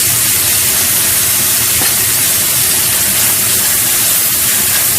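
Marinated minced pork sizzling in hot oil in a wok, a steady loud hiss just after the meat has been dropped in.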